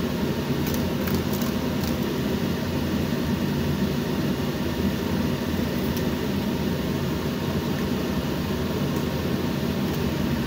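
Steady low hum of a running machine, with a few light clicks of a metal spatula against the frying pan in the first couple of seconds and once more about six seconds in.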